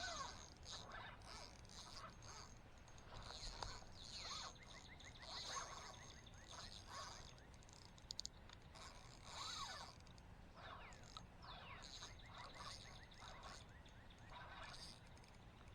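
Faint chorus of wild birds: repeated short high chirps and sweeping calls, with a quick trill about five seconds in. Two sharp clicks come about eight seconds in.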